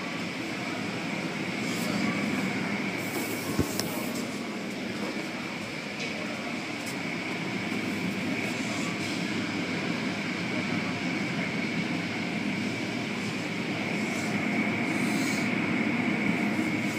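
Automatic tunnel car wash running, heard from inside the car: a steady rumble and hiss of spinning cloth brushes and water spray against the car, with a constant high whine. A single sharp click sounds about three and a half seconds in.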